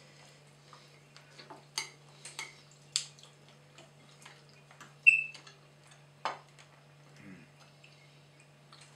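Scattered clinks and taps of cutlery against china plates and soup bowls during a meal, about half a dozen in all. The loudest is a ringing clink about five seconds in. A faint steady hum lies underneath.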